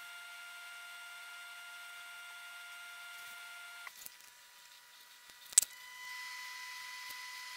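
Faint steady electronic whine and hiss, several thin tones at once, which shifts to a different set of tones at a cut about four seconds in; one sharp click about a second and a half later.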